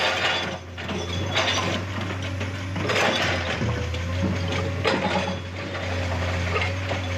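Hydraulic breaker hammer on a Komatsu excavator pounding a rock face in rapid repeated blows, over the steady hum of the excavator's diesel engine.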